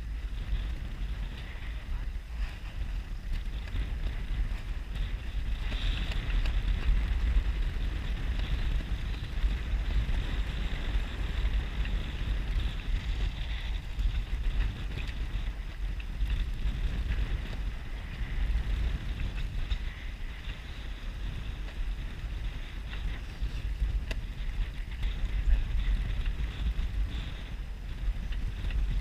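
Wind buffeting the camera microphone: a constant low rumble, with a steady higher rushing hiss over it.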